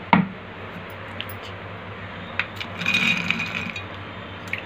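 Soaked black-eyed peas being scooped by hand out of a steel bowl and dropped into a mixer jar. A sharp knock comes just after the start, a few scattered clicks follow, and the beans clatter into the jar about three seconds in.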